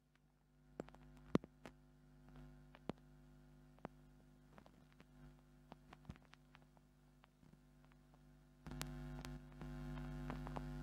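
Electrical mains hum with a few faint, scattered clicks. The hum comes up louder and steady about nine seconds in.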